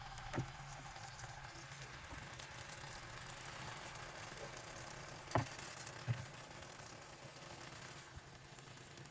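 Marinated chicken tikka pieces sizzling steadily in melted butter in a nonstick frying pan. A spatula knocks against the pan three times as the pieces are spread, once near the start and twice about five to six seconds in, the middle knock the loudest.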